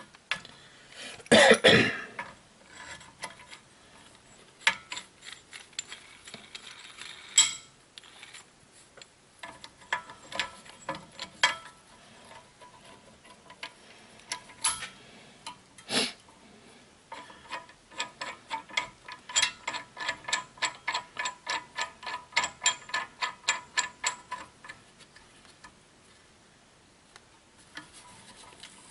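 Brake caliper piston wind-back tool clicking in runs of sharp, even ratcheting clicks, about three a second at its steadiest, with pauses between, as the piston is screwed back into the rear caliper. A louder metal clatter comes about a second and a half in.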